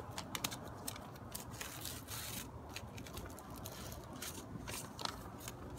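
Quiet rustling and crinkling of a folded paper map being handled and slid out from under a flower pot, with scattered small clicks.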